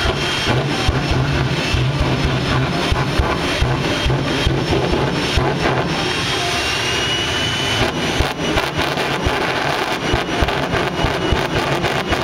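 Jet car's jet engine running at high power with its afterburner flame lit: a loud, steady rushing noise with rapid crackling.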